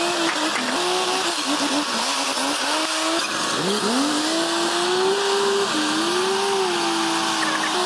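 A machine engine revving, its whine swooping up sharply and then holding and wavering in pitch, over a steady noisy rumble.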